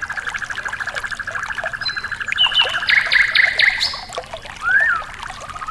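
Bird calls over trickling water: a fast, even trill at one pitch, then a burst of loud high whistled notes about halfway through and a short rising-and-falling call near the end.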